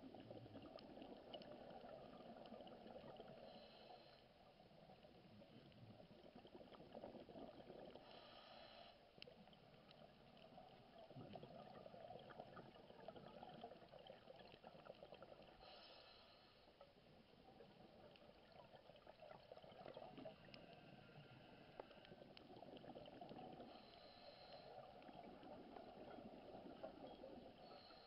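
Faint, muffled underwater noise with short hissing bursts every several seconds, typical of a scuba diver's exhaled bubbles rising from the regulator.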